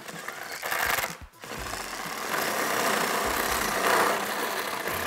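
Cordless drill spinning a socket on a long extension to back out screws from a plastic truck grille: one short run, a brief pause, then a longer steady run.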